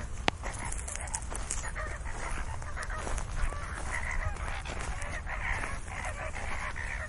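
A flock of greater flamingos calling with short goose-like honks, the calls coming thicker from about four seconds in. A single sharp click sounds just after the start.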